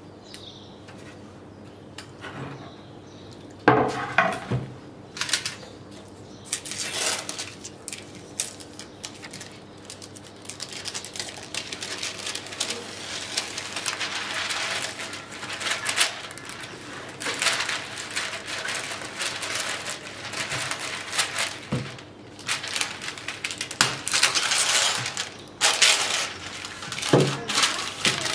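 Baking paper being unrolled, pulled and rustled over a metal baking tray, with a knock on the tray about four seconds in and another near the end.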